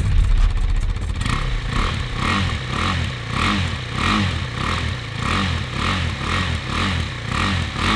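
KTM RC 390's single-cylinder engine running and being revved in quick repeated throttle blips, about two a second.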